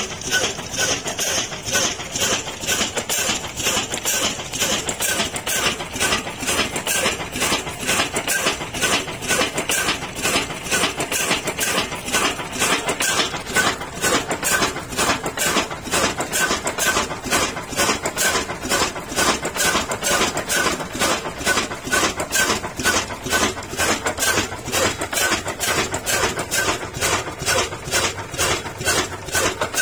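Old Ruston Hornsby single-cylinder horizontal diesel engine running steadily under its big flywheel, with a slow, even beat of firing strokes. It is belt-driving a flour mill.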